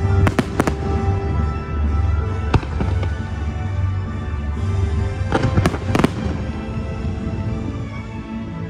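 Fireworks bursting in sharp bangs over loud show music with a deep bass: a pair a third of a second in, one at about two and a half seconds, and a quick cluster of several around five to six seconds in.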